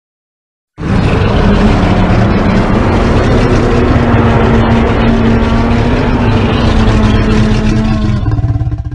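A custom giant-monster roar sound effect: one long, loud, rough roar with a steady low tone held through it, starting about a second in and tailing off near the end.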